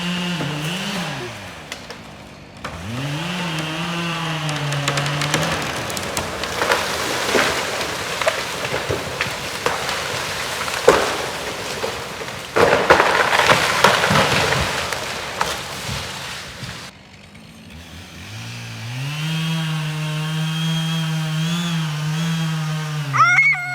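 A chainsaw running and revving, then a long rough stretch of cutting and cracking wood with two loud sharp cracks about 11 and 13 seconds in, then the chainsaw running steadily again near the end.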